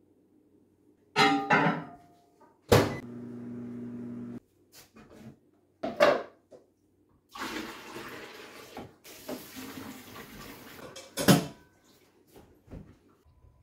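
Kitchen sink work: clinks and knocks of jars and a stainless steel milk pail being handled, with the faucet running for a few seconds past the middle. A brief low hum sounds about three seconds in.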